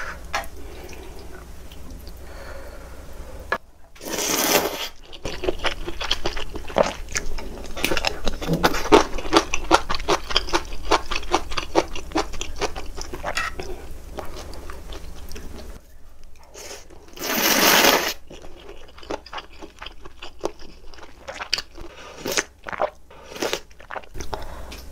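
Close-miked mukbang eating sounds: ramen noodles slurped in two long slurps, one a few seconds in and one past the middle, with wet chewing and crunching clicks between them.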